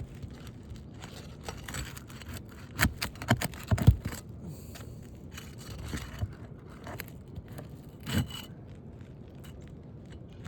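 Asphalt roof shingles being worked loose with hand tools: scraping and rustling, with a cluster of sharp knocks about three to four seconds in and another knock near eight seconds. The shingles are stapled rather than nailed, which makes them harder to pull.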